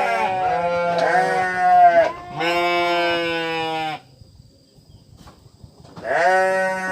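Sheep bleating: two long, wavering bleats back to back, the first with more than one voice overlapping, then a pause of about two seconds before another bleat begins near the end.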